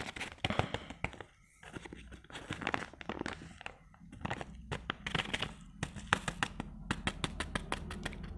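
Paper spice sachet of ground black pepper crinkling and crackling as it is squeezed and shaken over a plate of dumplings. The clicks come thicker and faster near the end.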